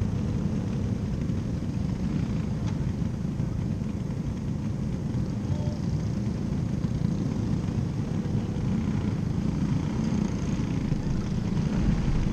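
Race car engines running steadily around a dirt oval, heard as a continuous low rumble with no single car passing close.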